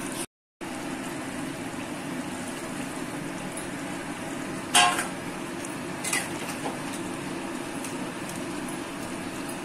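Prawn and potato curry simmering in a metal kadai on a gas stove, a steady bubbling hiss, with a metal spatula clinking sharply against the pan about five seconds in and tapping it lightly a couple more times.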